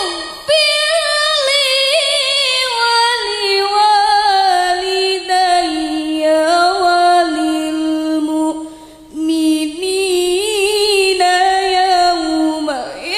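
A young woman reciting the Qur'an in melodic tilawah style into a microphone: long held, ornamented notes that waver and slide. She takes short breaths just after the start and about nine seconds in.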